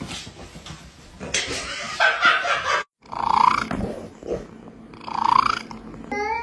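Rustling and scuffling noise that stops at a sudden cut about three seconds in, followed by a cat meowing twice, each call rising in pitch, and a short further call near the end.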